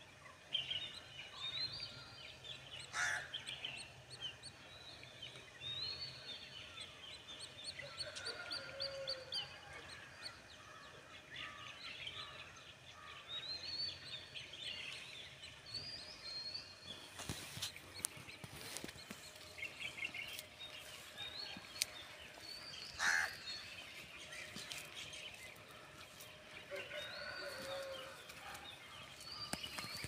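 Many small birds chirping and twittering in a dawn chorus, high calls overlapping throughout. A few louder calls stand out, about three seconds in and again a little past twenty seconds.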